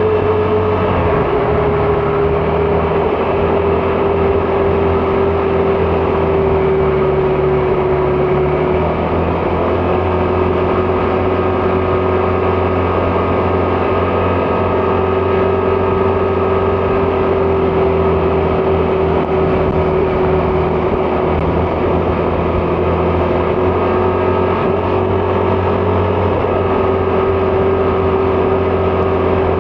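Vespa GTS 300 scooter's single-cylinder engine running at a steady cruise, with wind and road noise. The engine note shifts slightly a couple of times but stays mostly even.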